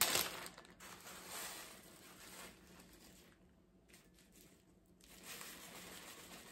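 Plastic zip-top bag crinkling as finely crushed protein chips are poured from it into a bowl, loudest in the first second, then faint rustling.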